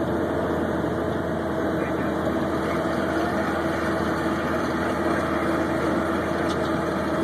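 Snowcat grooming machine's diesel engine running steadily while working, a continuous drone with a held tone over it.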